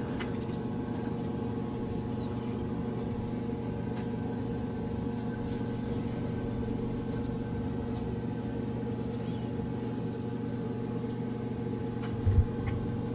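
A steady machine-like hum, as of a fan or appliance running, with a few faint ticks of small parts being handled and a short low bump near the end.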